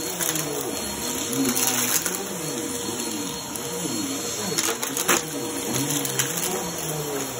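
Bagless upright vacuum cleaner running on carpet as it is pushed back and forth, its motor hum wavering up and down in pitch. A couple of sharp clicks come about five seconds in.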